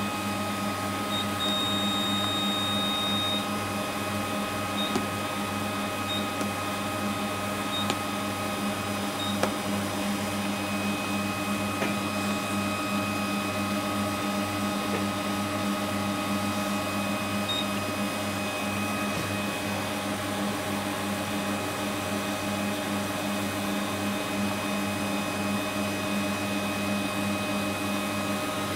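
Small peristaltic tubing pump motor running with a steady hum while it slowly dispenses liquid. High electronic beeps sound over it: one longer beep about a second in, then several short ones.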